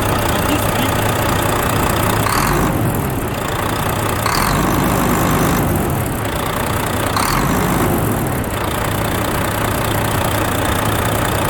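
Volvo FH13's 13-litre six-cylinder diesel engine idling steadily, with a slight rise and fall in its sound every second or two. No squeak from under the valve cover after the rocker arms were replaced.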